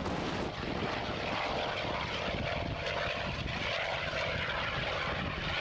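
Hawker Sea Fury's piston engine and propeller running at take-off power as it accelerates across the grass and lifts off, a continuous steady engine drone.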